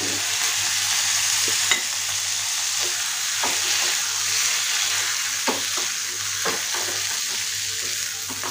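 Okra and gram-flour masala sizzling hard in a hot black kadai, just sprinkled with water, while a wooden spatula stirs it, with irregular scrapes and knocks against the pan.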